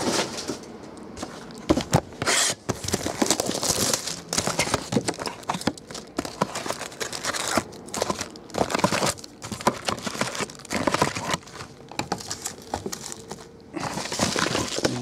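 Foil Bowman Chrome baseball card packs crinkling and rustling as they are taken out of an opened box and handled, with tearing and scattered clicks and taps of cardboard boxes. The loudest bursts of rustling come about two seconds in, around four seconds, and again near the end.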